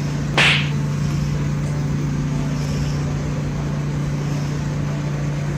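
A steady low machine hum, unchanging in pitch and level, with one short hissing burst about half a second in.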